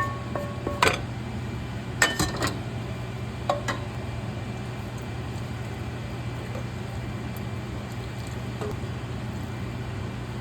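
Metal utensil clinking against a cooking pot about half a dozen times in the first four seconds, some strikes briefly ringing, over a steady low hum.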